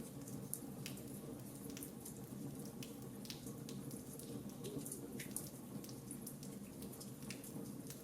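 Fireplace fire crackling: a steady low rush of flames under irregular sharp snaps and pops, a few a second.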